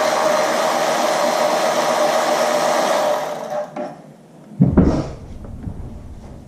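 Small electric power tool motor whirring steadily, stopping about three seconds in, followed by a single loud low thump about a second and a half later.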